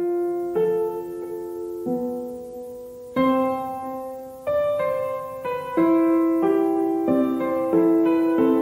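Background piano music: a slow, gentle melody of single notes and chords, each struck and left to ring out.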